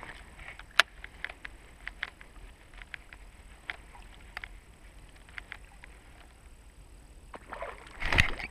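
Baitcasting rod and reel working a topwater lure in a twitching retrieve: faint, irregular clicks and ticks, the sharpest about a second in. Near the end comes a louder, short rush of noise.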